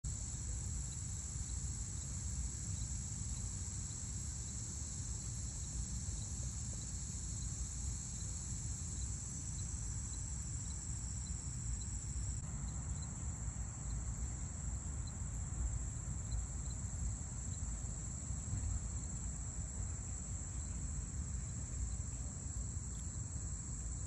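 Steady high-pitched drone of an outdoor insect chorus over a low rumble, with faint regular ticking about twice a second during the first half.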